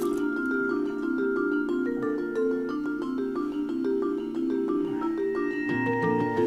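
Background music: a quick, steady pattern of short repeated notes, with a low bass line coming in near the end.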